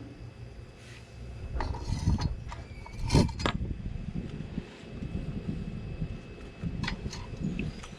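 Several hard knocks and clinks of solid objects being handled, clustered in the first half with the loudest about three seconds in, then a few more near the end.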